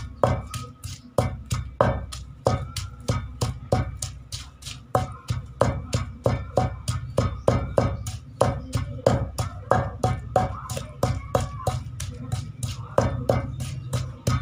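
Long wooden pestle pounding chopped onions and spices in a large wooden bowl: an even run of dull wooden thuds, about three to four strokes a second, mashing the mixture into chutney.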